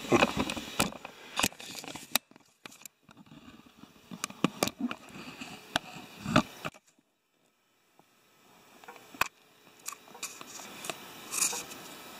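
Scattered clicks, knocks and light scrapes of hands and a handheld camera moving around a lawnmower engine's carburetor. The sound drops out completely for about a second near the middle.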